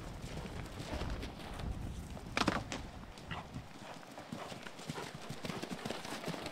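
Horses' hooves thudding and clopping irregularly on turf as horses jump a stone wall and land, with one short loud cry about two and a half seconds in.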